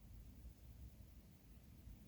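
Near silence: a faint, unsteady low rumble with light hiss.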